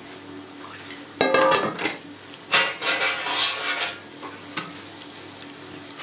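A stainless steel bowl set down on a wooden table with a ringing clatter about a second in. Then comes handling noise as gloved hands gather cut cheese strips from a plastic cutting board, with a small knock near the end.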